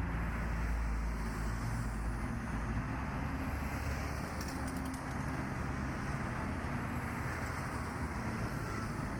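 Motorcycle on the move: a steady low engine rumble with road and wind noise on the microphone.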